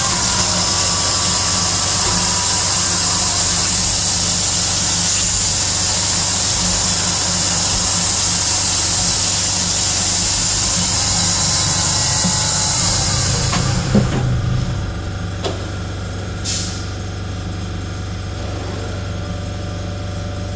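CNC milling machine cutting cold-rolled 1018 steel with a half-inch carbide end mill spinning at 6,000 rpm: a steady, loud, high-pitched cutting noise over a low machine hum. About 14 seconds in, the cut stops abruptly, leaving only the machine's quieter hum and a brief hiss a couple of seconds later.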